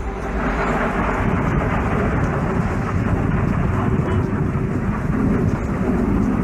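Loud rumbling roar of a rocket launch, a dense crackling noise that holds steady throughout.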